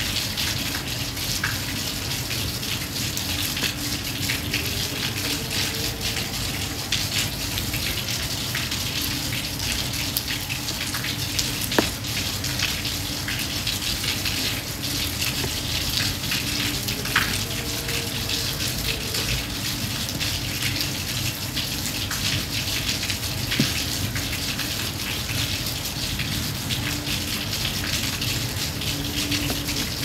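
Steady rain falling: an even, dense hiss of drops, with a few single louder drops standing out now and then.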